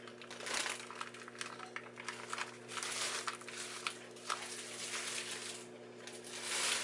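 Rice paper crinkling and rustling in irregular bursts as it is folded by hand around bell pepper strips and lettuce; the sheet is still stiff because it was soaked in water that was too cold. A steady low hum runs underneath.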